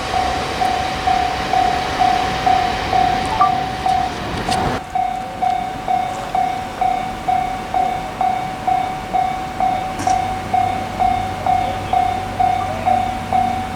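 Japanese level-crossing warning bell ringing in even dings about twice a second. The rushing noise of a passing train under it cuts off suddenly about five seconds in as the train clears the crossing, leaving the bell ringing on.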